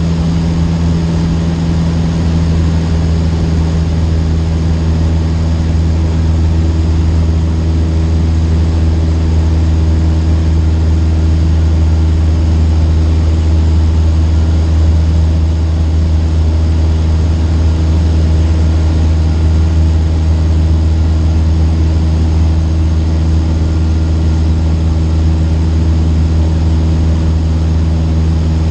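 Cessna 152's four-cylinder Lycoming engine and propeller running steadily, a loud, even drone with a low hum at its core.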